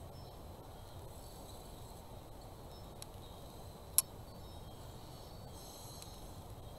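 Quiet, steady room hiss with one sharp click about four seconds in and a fainter tick a second before it, as paper is positioned and pressed onto a glued craft piece by hand.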